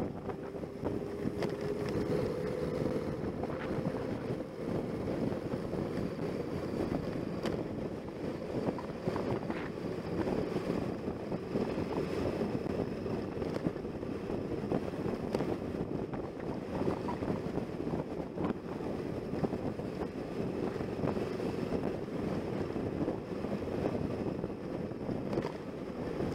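Motorcycle on the move, its engine running steadily under heavy wind rush on the on-board camera's microphone.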